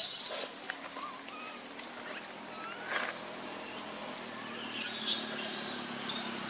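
A few short, high-pitched squeaks from a baby macaque: one at the start, one about three seconds in and two close together around five seconds. A steady high insect drone runs underneath.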